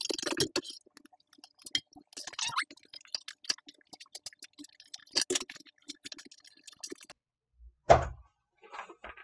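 Industrial walking-foot sewing machine stitching, stopping under a second in. Then light clicks and rustles as the leather clutch is handled and its threads trimmed with scissors, and one sharp thump near the end as it is set down on the table.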